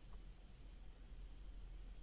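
Near silence: a faint steady low hum under light room hiss.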